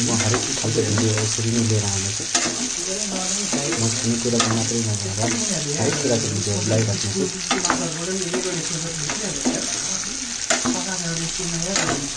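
Pork curry sizzling in a frying pan while a metal spatula stirs it, with a steady hiss and sharp scrapes and clicks against the pan. Underneath runs a low hum that shifts in pitch every second or so.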